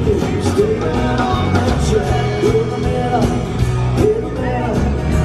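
Rock-style music with a singing voice over a steady drum beat and bass.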